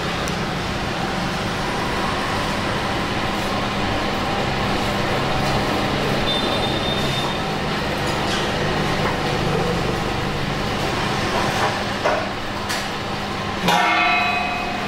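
Steady din of a busy pho shop: a constant rumble and hum with a few clicks and clatter, and a brief ringing sound near the end.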